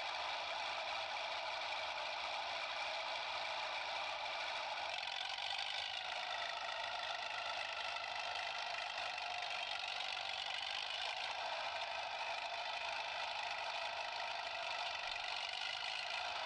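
A steady, unbroken mechanical whir, like a small motor running, with faint steady tones and no knocks or breaks.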